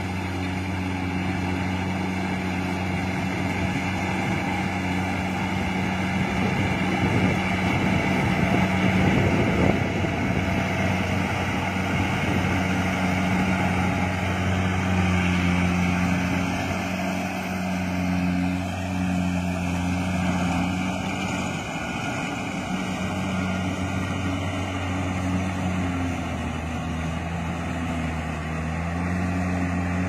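Kubota DC-70 combine harvester's diesel engine running steadily while it harvests rice: a low, continuous drone with a mechanical whir over it, dipping slightly in pitch a couple of times.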